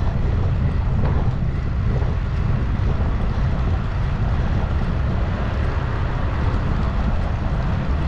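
Steady wind noise on the microphone of a moving bicycle: an even rush, heaviest in the low end, with no clear pitch or rhythm.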